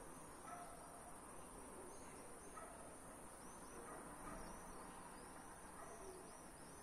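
Faint dusk ambience: a steady high-pitched chirring of crickets, with small quick chirps over it. A soft, short hooting note sounds a few times, about every two seconds.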